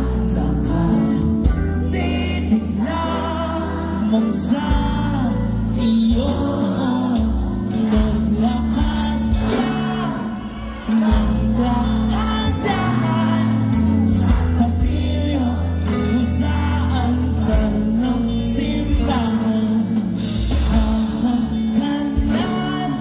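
Live band music through the stage PA: vocals over electric guitars, keyboard, bass and drums. The band drops back briefly a little before the middle, then comes back in full.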